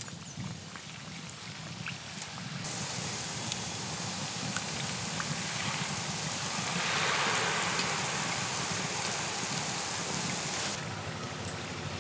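Rice-flour and coconut-milk batter on a rose cookie mould frying in hot oil. A loud, even sizzling hiss starts suddenly a few seconds in and cuts off abruptly near the end, with a few scattered pops. A quieter sizzle is heard before and after.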